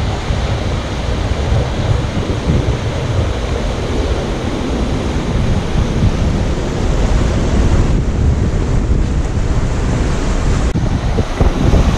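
Gulf of Mexico surf breaking on the beach, a steady wash of waves, with wind buffeting the microphone in low rumbles.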